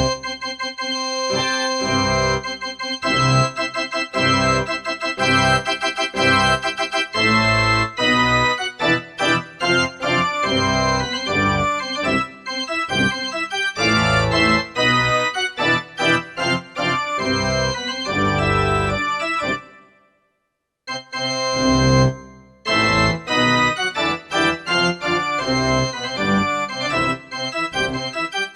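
Casio CTK-4200 arranger keyboard played with an organ voice: chords and melody over a rhythmic bass line, stopping for about a second roughly two-thirds of the way through before playing resumes.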